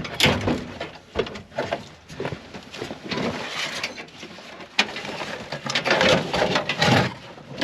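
Irregular knocks, clicks and short scraping rustles from handling parts and wiring by hand.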